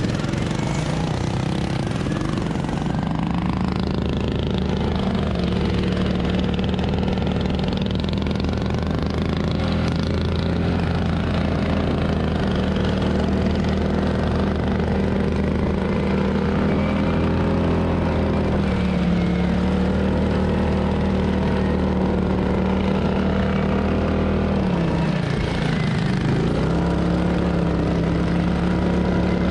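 Single-cylinder racing lawn mower engine running hard at steady high revs, dropping sharply about 25 seconds in as the throttle comes off, then picking back up.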